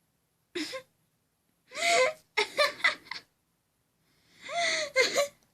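Young woman laughing in breathy, gasping bursts, in two spells a couple of seconds apart, while she has the hiccups.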